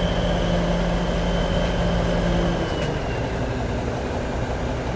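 Mobile crane's diesel engine running steadily, with a faint high whine over it. About two and a half seconds in, its note drops and gets slightly quieter as the whine fades out.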